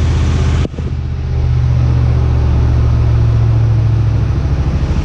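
Freshly rebuilt Ford 5.4-litre three-valve V8 running just after its first start-up, at a fast idle. The sound cuts out briefly just under a second in, then runs steadily.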